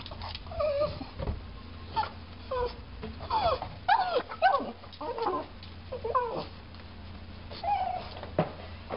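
Pug whining, many short high cries that bend up and down in pitch.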